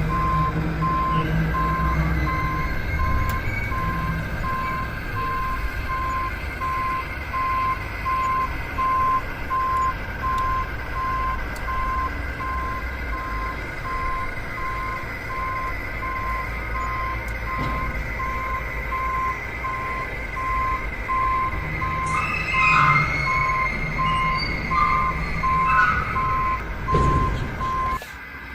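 Reversing alarm beeping in an even, regular series over a low engine rumble, stopping shortly before the end.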